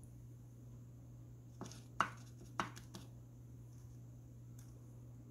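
Four short, sharp light clicks and taps over about a second and a half near the middle, from a plastic squeeze bottle as cake batter is squeezed into paper cupcake liners in a metal muffin tin. A faint steady low hum runs underneath.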